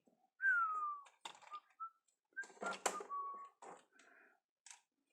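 A series of high, whistle-like notes: one long falling note about half a second in, then several short notes, among sharp clicks.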